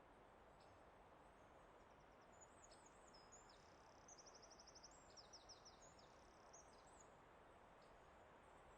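A songbird singing faintly over a steady background hiss. From about two seconds in to about seven seconds in it gives a run of high chirps and slurred whistles, with a quick trill in the middle.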